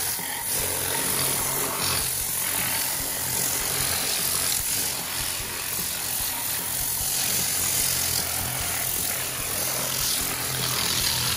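Tornador compressed-air cleaning gun blowing over the engine bay with its product tap shut, a steady loud hiss of air for the rinse-and-dry pass.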